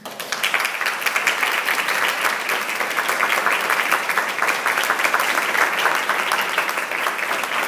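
A roomful of people applauding, breaking out suddenly and keeping up steadily as many hands clap at once.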